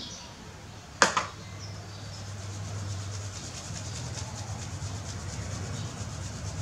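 A sharp knock about a second in, then a steady rapid rubbing as a small plastic baby bottle is rolled between the palms to mix milk formula.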